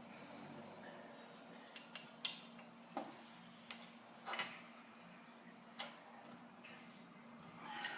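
Scattered short metal clicks and clinks of hand tools being worked on a motorcycle's front-end bolts, about seven in all, the sharpest about two seconds in, over a faint steady hum.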